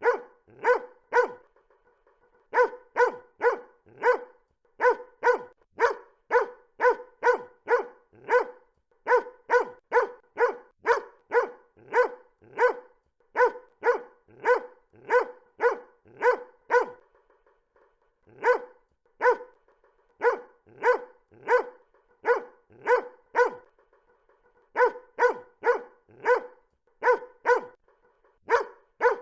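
A dog barking over and over in quick strings of about three barks a second, broken by short pauses of about a second.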